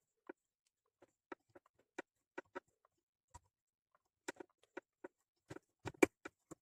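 Fly-tying tools and materials handled at the vise, giving irregular small clicks and taps, loudest about six seconds in.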